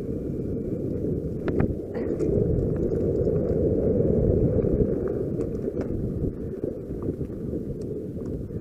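Wind buffeting a point-of-view camera's microphone as a mountain bike runs fast down a dirt forest trail, a steady low rumble that is loudest in the middle, with a few sharp clicks and knocks from the bike rattling over the ground.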